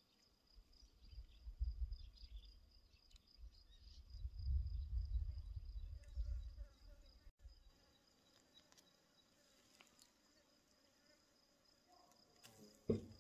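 An insect's steady high-pitched trill, slightly pulsing, with low rumbling on the microphone through the first half and a sharp knock near the end.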